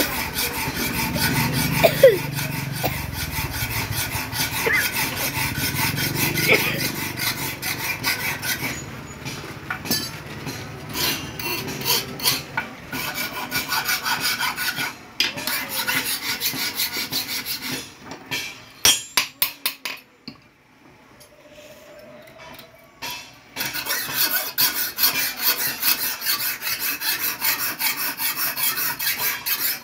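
Hand file rasping back and forth across the steel blade of a newly forged knife in quick, steady strokes, filing the blade's edge. The filing drops away for a few seconds about two-thirds of the way through, then resumes.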